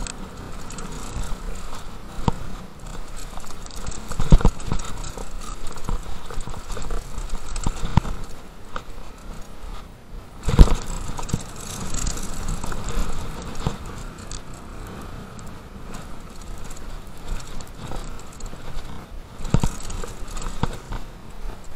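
Downhill mountain bike running over a rough bike-park trail: steady tyre and trail noise with a constant rattle of chain and frame, broken by hard knocks from hits or landings about four and ten and a half seconds in.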